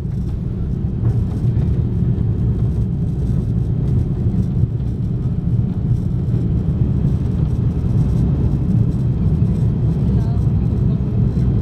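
Cabin noise of an Airbus A340-600 during takeoff: a steady, loud low rumble of its four Rolls-Royce Trent 500 engines and the airflow, heard from inside the passenger cabin.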